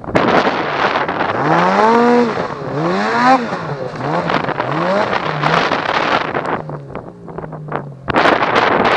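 Snowmobile engine revving up and down several times, its pitch rising and falling over a rush of wind and snow noise. The sound jumps suddenly louder near the end as the throttle opens.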